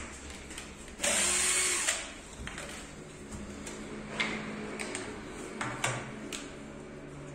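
Cordless drill running for about a second as it drives a screw, then a few light knocks and clicks.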